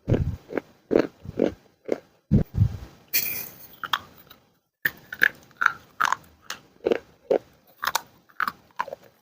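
Crunching of dry baked clay in sharp, short crunches about two a second. About three seconds in there is a longer gritty crumble, then a short pause before the crunches resume.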